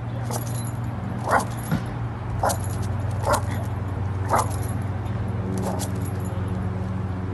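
Dog barking: a series of short barks, about one a second, over a steady low hum.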